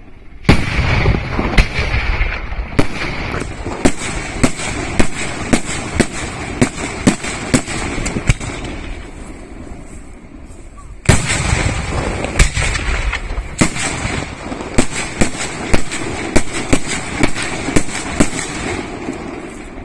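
Aerial firework shells bursting. A heavy boom about half a second in is followed by a string of sharp bangs that thins out, and a second heavy boom near eleven seconds starts another fast run of bangs.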